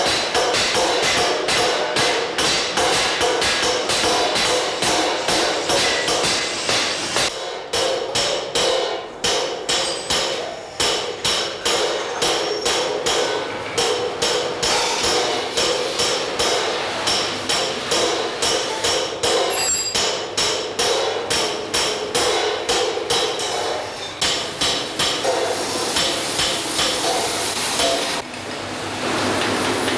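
Bronze cymbal being hand-hammered: rapid metal hammer strikes, several a second, each with a short ringing. Near the end the hammering stops and a steady machine hum takes over as a lathe turns a cymbal.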